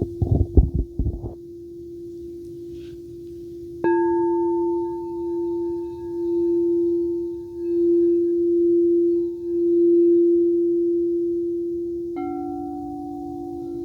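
Singing bowls ringing with a steady hum, after a few soft knocks in the first second. About four seconds in, one bowl is struck and rings on with a slow wavering swell. Near the end, a second bowl of a different pitch is struck.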